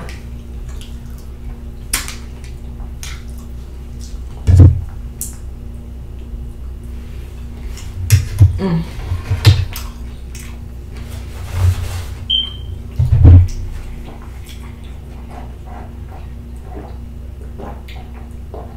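Close-miked eating sounds: chewing, with scattered clicks of a fork against a small plastic container. Several loud, low thumps come about a third of the way in and again around the middle.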